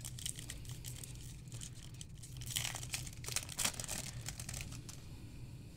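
Foil wrapper of a baseball card pack crinkling and tearing as it is ripped open and the cards are slid out, in a run of crackles that are loudest about halfway through.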